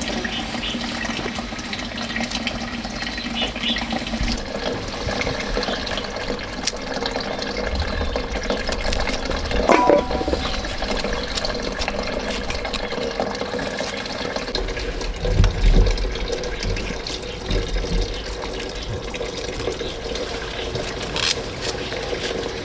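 Water running steadily, with a brief clatter about ten seconds in.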